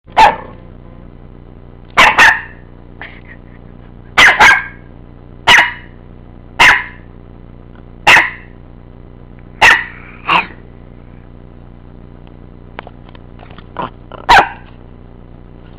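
A dog barking: about ten sharp barks, some in quick pairs, every second or two, then a pause of a few seconds before one last bark near the end.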